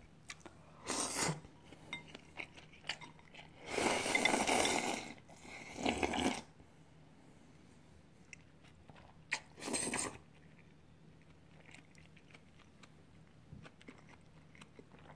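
A person eating a last mouthful of ramen noodles: several noisy slurping bursts in the first ten seconds, the longest about four seconds in, then faint chewing and small clicks.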